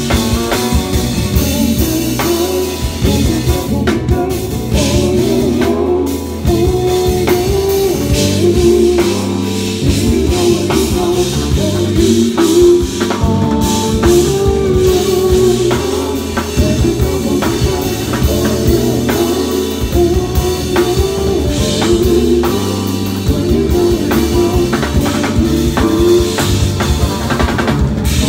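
Live band playing: a six-string electric bass carrying a busy melodic line over a drum kit with cymbals and keyboards.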